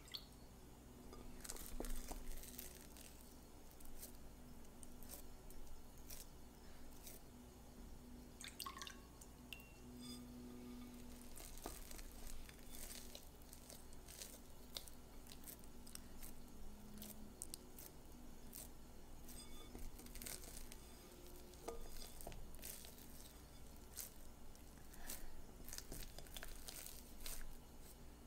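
Wet hands folding and pressing sticky gluten-free sourdough dough in a glass mixing bowl: soft squelches and many small sticky clicks, with fingers now and then knocking against the glass.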